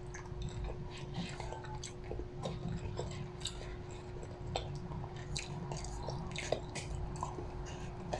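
A person chewing food, with scattered small clicks, over a steady low hum.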